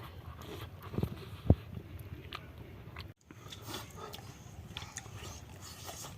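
Close-up eating sounds: chewing and wet mouth clicks, with two dull knocks about a second in.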